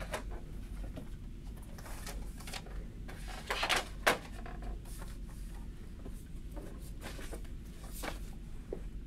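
Quiet office room tone with a low hum and scattered small desk-handling rustles and clicks. About three and a half seconds in comes a louder scrape that ends in a sharp click.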